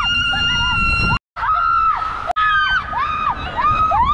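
Women screaming with excitement while riding a tube down a funnel water slide. A long held scream is followed by a run of shorter rising and falling screams, with a low rushing noise underneath. The sound drops out for an instant about a second in.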